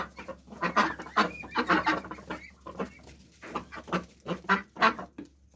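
A flock of domestic ducks calling in short, rapid quacks, several a second, as they rush to their food.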